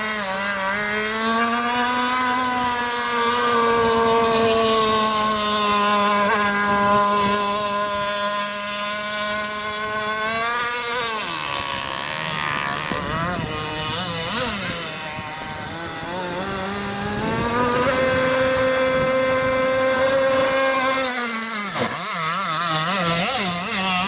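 An RC boat's 27cc two-stroke petrol engine running at high revs. About eleven seconds in it is throttled back and its note drops and wavers. It climbs back to full speed a few seconds later, then dips briefly once more near the end.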